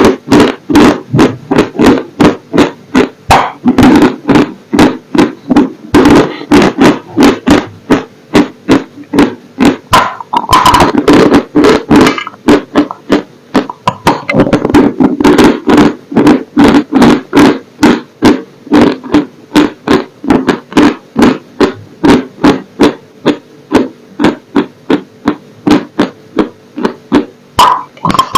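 Close-miked dry crunching: a person biting and chewing brittle, dry pieces in a steady run of sharp, loud crunches, about two to three a second.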